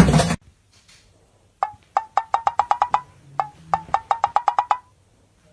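The tail of a shout right at the start, then two quick runs of sharp knocks, each a single knock followed by a rapid rattle of about eight knocks that rise slightly in pitch.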